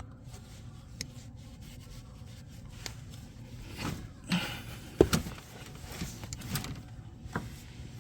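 Scattered light clicks, knocks and rubbing as tools and parts are handled under a car, with the sharpest click about five seconds in, over a low steady hum.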